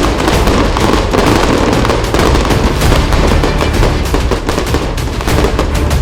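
Fireworks going off in a dense, continuous barrage of rapid crackling bangs with a low rumble underneath.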